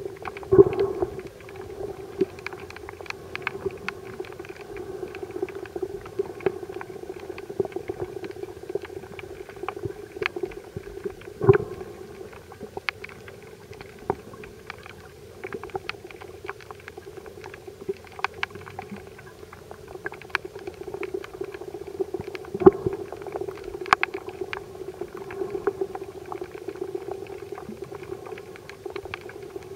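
Underwater sound in shallow sea water: a steady low hum with many scattered sharp clicks and crackles, and a few louder knocks along the way.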